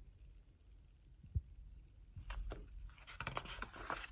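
Quiet paper handling: the pages of a picture book rustling and scratching as a page is turned, with a soft thump about a second in.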